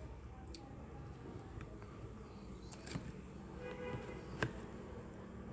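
Faint handling clicks and light rustles from banana-leaf-wrapped pepes being lifted and moved over a plastic container. A short pitched squeak comes just before a sharp click about four and a half seconds in.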